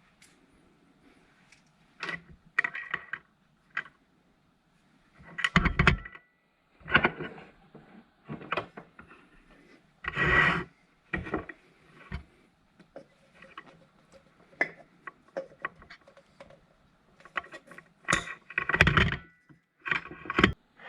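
Tools and metal pump parts being handled while a submersible water pump is taken apart: irregular clinks, knocks and clatter, with a few louder thumps.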